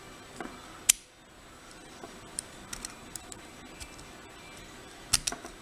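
Small sharp metallic clicks and taps of a tool working at the retaining clip on an Assa lock cylinder, as the clip is pried at to take the lock apart. The sharpest click comes about a second in, with scattered lighter ones and a quick cluster of clicks near the end.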